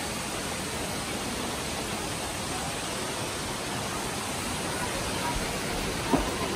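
Steady rush of running water, with one short knock about six seconds in.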